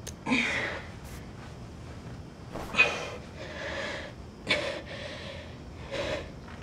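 A teenage girl breathing hard while straining: about five sharp, effortful breaths and grunts with pauses between them, as she struggles to fasten jeans that are too tight.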